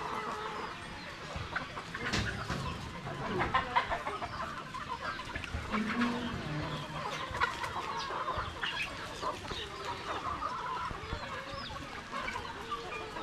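A flock of Rhode Island Red chickens clucking, with many short overlapping calls and a few sharp clicks.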